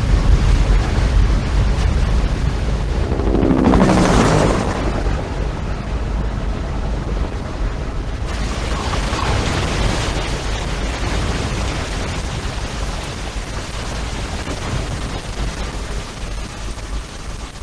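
Movie sound design: a deep continuous rumble with a loud rushing swell that rises and falls about four seconds in. From about eight seconds, a steady rushing waterfall noise joins it.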